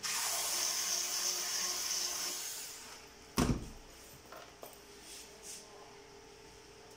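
Cordless drill-driver whirring steadily for about two and a half seconds as it backs out a screw from the ventilator's rear cover, then winding down. About three and a half seconds in there is a single loud knock.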